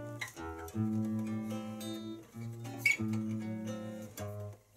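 Acoustic guitar music: plucked notes and chords ringing, the harmony changing every second or so, with a short lull near the end.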